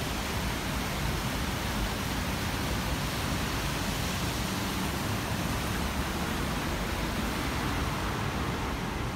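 A steady, even hiss with no distinct sounds in it, unchanged throughout.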